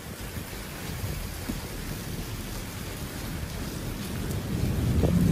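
Steady rain falling, with a low rumble building near the end.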